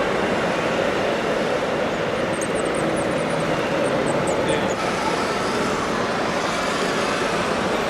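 Steady mechanical running noise of radio-controlled model trucks and construction machines, with a flurry of short, high squeaks about two and a half to four and a half seconds in.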